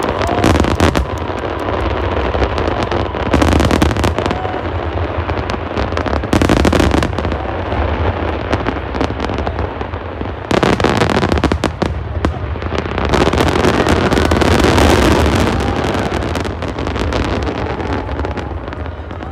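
Fireworks display: a continuous barrage of shell bursts and crackle, building into heavier volleys several times, the longest about two-thirds of the way through.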